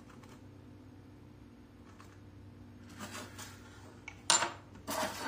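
Handling noises as a polished rock piece is swapped under a digital microscope: a short rustle, then a sharp click with a brief ring about four seconds in, followed by a short scrape. A low steady hum sits underneath.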